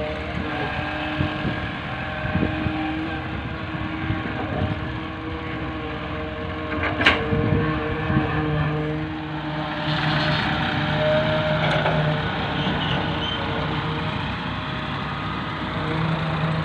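Diesel engines of farm tractors and a tracked excavator running together, with a single sharp metallic clank about seven seconds in.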